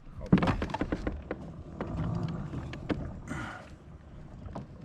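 A quick run of clicks and knocks from fishing gear being handled on a kayak, while a hooked fish is being fought. A short rushing hiss, like a splash, comes a little over three seconds in.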